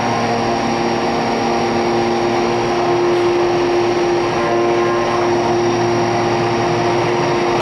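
Hurco BMC 4020 vertical machining center running under power: a steady mechanical whine with several held tones over a machine hiss.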